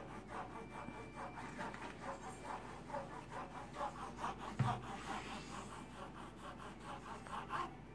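A steak knife sawing back and forth through a strip of tough leather in quick, regular rasping strokes. The blade is making slow progress through the leather.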